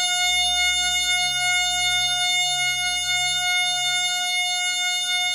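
A sustained F-sharp major chord of steady tones, with the A-sharp completing the chord. The lower notes pulse slowly and drop out near the end, while the higher tones hold.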